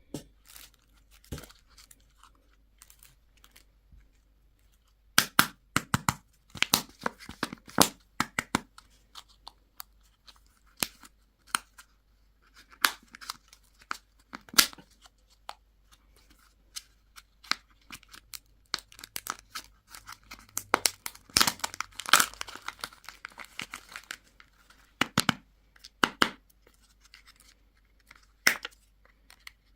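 Candy and toy wrappers being torn open and crinkled, in quick crackling bursts that are sparse for the first few seconds and then come thick and fast.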